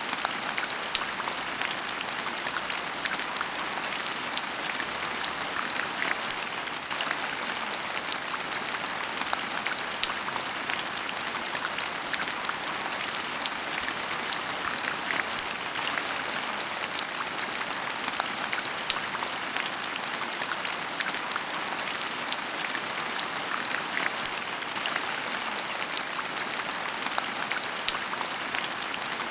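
Heavy rain falling steadily: a dense, even hiss with many sharp ticks of single drops striking close by.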